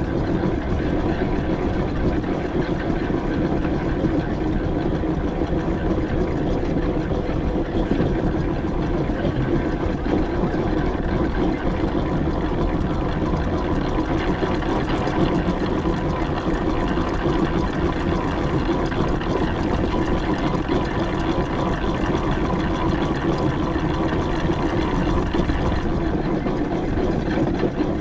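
4-inch scale McLaren traction engine running steadily on the move, a constant, even mechanical noise with no pauses.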